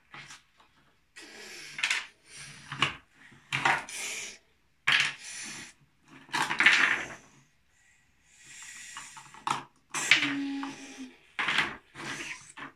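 Plastic toy building pieces, snap-together house walls and window panels, clattering and knocking on a wooden table as they are handled, in a string of short irregular knocks.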